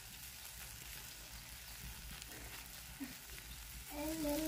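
Faint sizzling of spice masala frying in an iron kadai over a wood fire, with a brief click about three seconds in. A long held pitched call begins near the end.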